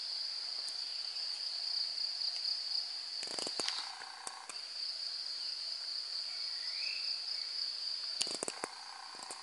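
Steady high-pitched insect drone, with two short clusters of sharp clicks, one about a third of the way in and one near the end.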